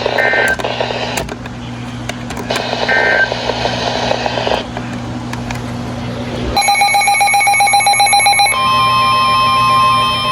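NOAA Weather Radio alert signalling between two warnings: two short SAME data chirps over radio hiss in the first few seconds, then a warbling SAME header data burst lasting about two seconds, then the steady 1050 Hz weather-radio warning alarm tone starting about two-thirds of the way through, all over a steady low hum.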